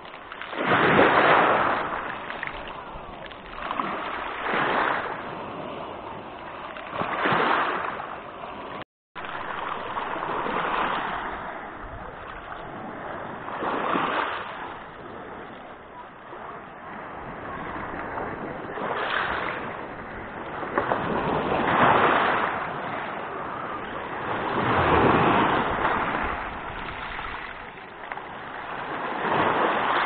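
Small waves of the Black Sea breaking and washing up over a pebble beach, each surge swelling and fading every three to four seconds. The sound cuts out for an instant about nine seconds in.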